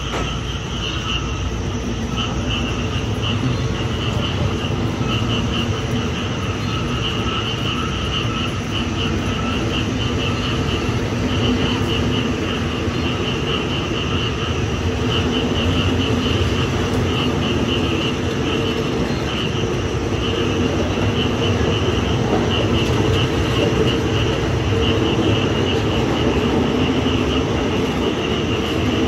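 Thai passenger train coaches rolling past as the train pulls out of the station, a steady rumble of wheels and running gear. Insects chirp throughout in a pulsing high band.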